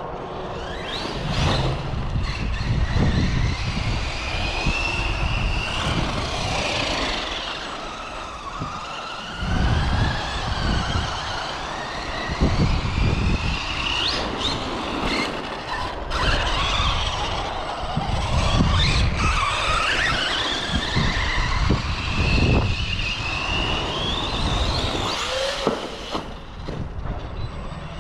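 Arrma Big Rock 3S RC monster truck's brushless motor whining as it is driven hard, the pitch gliding up and down again and again with throttle, over a low rumble that swells and fades.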